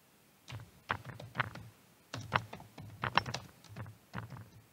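Keystrokes on a computer keyboard typing a file name, in two quick runs with a short pause between them.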